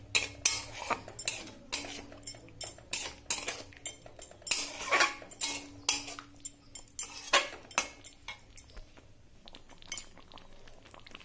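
A steel spatula scraping and clinking against a metal pan, stirring a thick elephant-apple chutney in quick, irregular strokes that grow fewer near the end.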